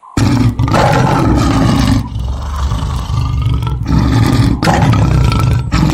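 Lion roaring: several loud roars in a row, with short breaks between them.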